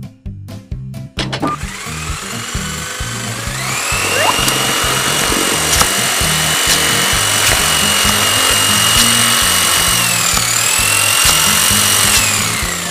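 Vacuum cleaner sound effect: the motor whine builds up, holds a steady high pitch while it sucks, dips briefly and then winds down near the end. Upbeat background music plays under it.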